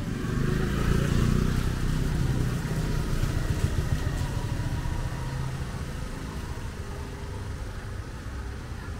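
A motor vehicle's engine running close by, loudest a second or two in and then slowly fading.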